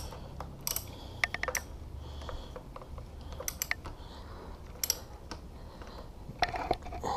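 Socket ratchet clicking in short, irregular strokes as the fork clamp bolts are tightened.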